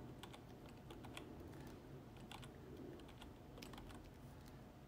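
Faint, irregular clicking of computer keyboard keys, over a low steady hum.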